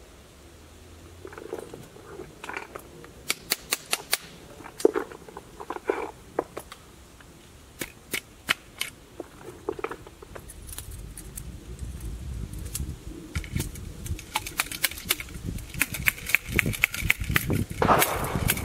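A flintlock military rifle being loaded by hand at the muzzle: scattered sharp clicks and taps in small clusters, with some rustling. A low rumble builds in the second half.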